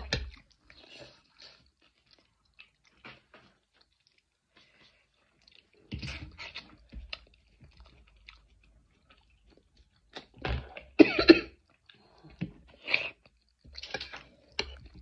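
Close-up eating sounds: chewing and slurping of spicy pasta in scattered short bursts with quiet gaps between, the loudest a cluster about ten to eleven seconds in that includes short coughs from the chili heat.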